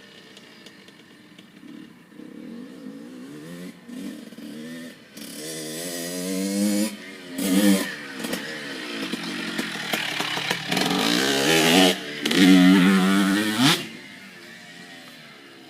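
Small dirt bike engine revving up and down, its pitch rising and falling with the throttle. It grows louder over several surges, then drops away sharply near the end.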